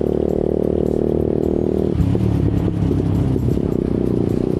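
Motorcycle engine running at a steady cruising speed, heard from the rider's seat. About two seconds in there is a knock and the note turns rough and uneven for a second or so, then steadies again.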